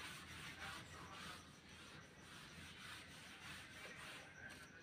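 Whiteboard eraser wiping marker off a whiteboard: a series of faint, uneven rubbing strokes.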